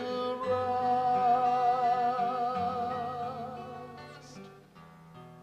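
Hymn singing: a single voice holds a long note with vibrato over sustained instrumental chords. The voice stops about three and a half seconds in, and the chords fade away.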